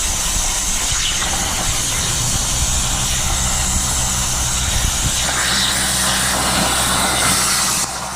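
Plasma cutter torch cutting metal on a CNC table: a steady loud hiss with a low hum underneath, dropping off near the end.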